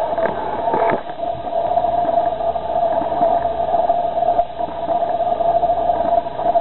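Steady hiss with a constant mid-pitched hum, the background noise of a poor, band-limited recording, with a few short faint sounds in the first second.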